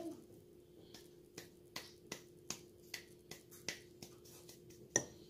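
A utensil clicking against the inside of a mug while stirring cake batter, in a steady rhythm of about two to three clicks a second, with one louder knock near the end. A faint steady hum runs underneath.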